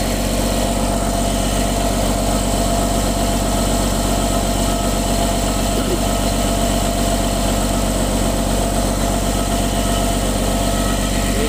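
A heavy-equipment diesel engine idling steadily. It is smoking badly, and the owner puts the fault down to a bad fuel injector.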